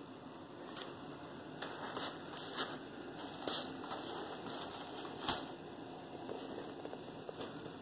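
Handling noise: irregular light clicks and rustles, the sharpest click about five seconds in, over a faint steady hum.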